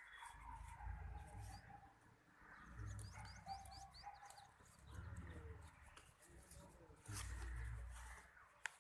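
Faint bird chirps, a quick run of short falling notes about three seconds in, over low intermittent rumble.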